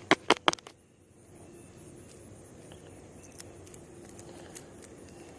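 Four sharp clicks in quick succession at the start, then the faint, steady patter of a Whopper Plopper 75 topwater lure being reeled slowly across the pond surface, its spinning tail churning the water.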